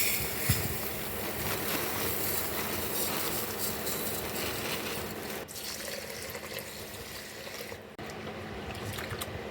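Tap water running steadily into a pot to wash rice. The level drops a little about five and a half seconds in and again near eight seconds.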